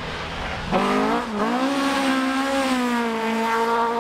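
Toyota Corolla GT AE86's four-cylinder engine running hard at high revs. It gets suddenly louder about a second in, dips briefly as if on a gear change, then climbs and holds near the top of the rev range.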